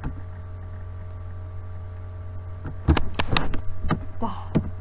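Steady low electrical hum picked up by the microphone. From about three seconds in it is joined by a quick run of sharp clicks from a computer keyboard and mouse.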